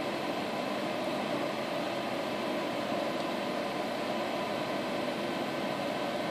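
Steady, even hiss and hum of background machinery, fan-like, with no distinct key clicks standing out.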